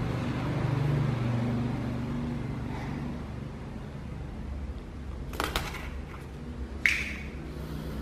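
A steady low motor-like hum, louder about a second in, broken by two brief sharp sounds: one about five and a half seconds in and a louder one near seven seconds.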